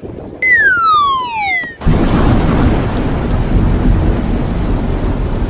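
A whistle falling steadily in pitch for about a second, then a sudden loud rumbling crash that goes on for several seconds, like an edited-in falling-bomb and explosion effect.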